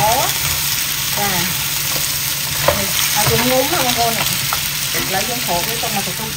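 Sea crab pieces sizzling steadily in hot oil in a nonstick wok while a spatula stirs and tosses them, scraping across the pan in several short strokes, with one sharp click about two and a half seconds in.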